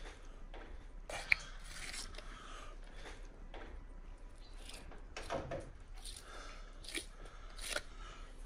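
A knife slicing open a snoek's belly as the fish is gutted: faint, scattered crunching cuts through skin and flesh, with one sharp click a little over a second in.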